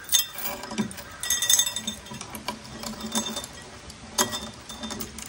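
Steel chain clinking and rattling against a 5-pound weight plate as the chain is threaded through the plate and the plate is hung on it, in a string of separate metallic clinks.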